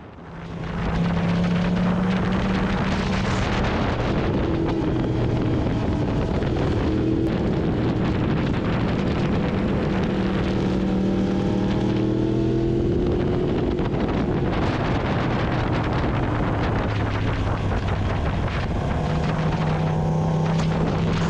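Motorcycle engine running under way, its note rising and falling in steps as the rider works the throttle and gears, with wind rushing over the microphone.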